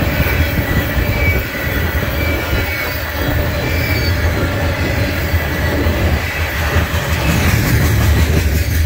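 Railroad tank cars of a freight oil train rolling past close by: a steady low rumble of steel wheels on rail, with a thin, steady wheel squeal above it.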